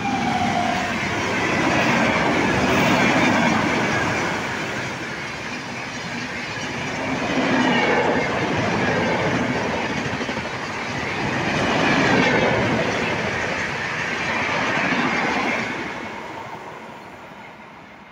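Jodhpur Express passenger train running through the station at under 70 km/h. The rumble and clatter of the coaches passing close by swell and ease several times, then fade as the last coach moves off near the end.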